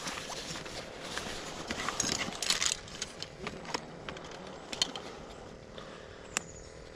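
Hands rummaging in a fabric tackle backpack: rustling of the bag and its contents, with a few sharp clicks and knocks as things inside are handled.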